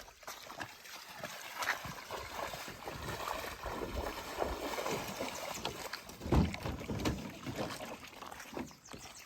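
Canoe being paddled: irregular splashes and knocks of paddle strokes in the water, with one louder thump about six seconds in.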